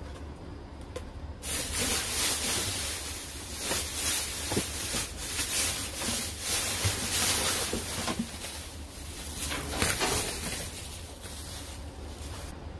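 Plastic trash bags rustling and crinkling as they are pushed and pulled with a reach grabber. The rustling starts about a second and a half in, comes in waves and stops just before the end.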